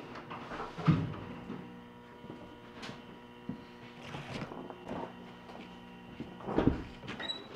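Hunting gear being handled and loaded into a pickup truck bed: scattered knocks and thumps, the loudest about a second in and near the end, over a faint steady hum.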